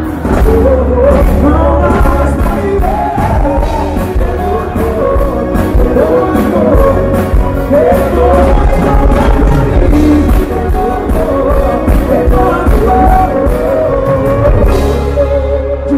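Live sertanejo band performance through the PA: a melody sung over acoustic guitar, heavy bass and a steady drum beat, loud.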